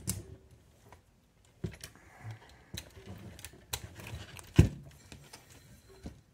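Scattered light clicks and taps of an RC buggy's plastic and metal parts being handled as its front wheels and steering are set straight by hand, with one sharper knock about four and a half seconds in.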